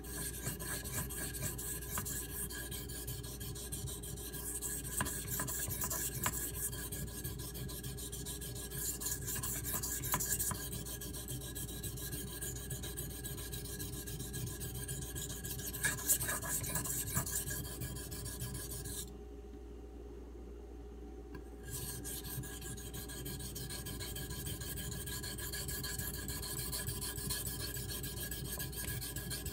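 CPM 3V steel knife blade scraping in steady strokes across a Shapton Pro whetstone, stopping for about two seconds past the middle and then carrying on. The steel is highly wear resistant, so the grinding is slow going.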